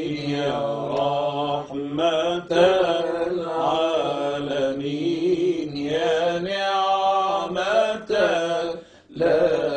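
Arabic nasheed: a slow, ornamented sung vocal line with wavering held notes over a steady low drone, without instruments.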